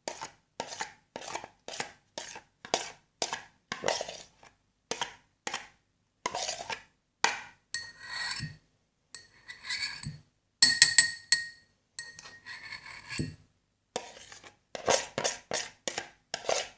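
A utensil stirring slime in a small container, knocking and scraping against the sides in quick strokes about two or three a second. In the middle come several ringing clinks, then the quick stirring strokes resume near the end.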